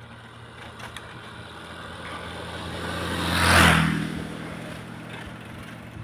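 A motor vehicle passing close by, getting louder to a peak about three and a half seconds in and then fading away.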